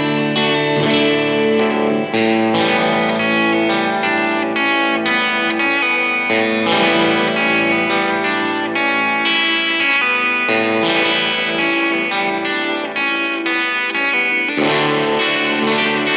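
Fender American Ultra Luxe Vintage 50s electric guitar being played in a sound demo: a continuous run of ringing notes and chords, with a short break and a fresh strum about a second and a half before the end.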